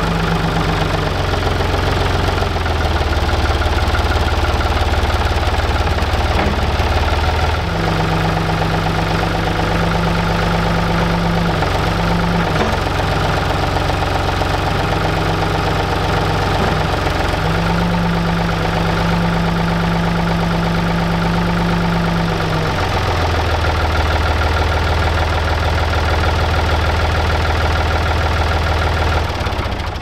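Ford 555 backhoe's diesel engine running at idle, its note shifting a couple of times as the front bucket and backhoe arm are lowered. The sound fades out near the end.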